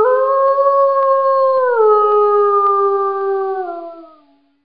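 One long, loud howl that rises at the start, drops in pitch in two steps and fades out near the end.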